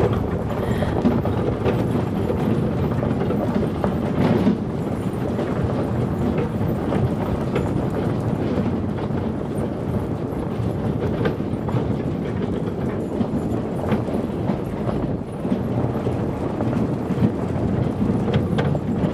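A team of sled dogs running on a gravel trail, pulling a wheeled cart: a steady rumble and rattle of wheels rolling over gravel, mixed with the dogs' footfalls.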